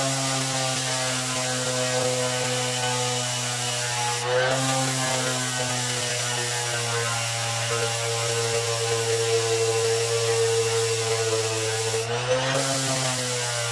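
Skil 7471 random orbit sander running steadily while sanding black paint off a board, its motor hum shifting briefly in pitch twice, about four seconds in and near the end.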